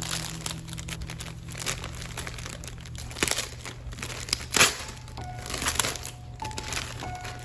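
Packaging being handled and crinkling, with a couple of sharp taps a little past the middle, over soft background music.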